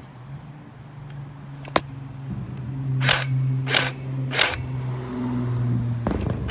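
Airsoft gun firing three shots about two-thirds of a second apart, each a short sharp crack, after a single click.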